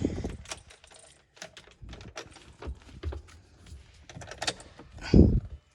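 Column gear shift lever of a truck's Allison automatic being worked through its gears, with a string of clicks and light knocks as it moves through the detents, and one heavier thump about five seconds in. The new shift cable has just been fitted, and the lever now holds its position and feels tight.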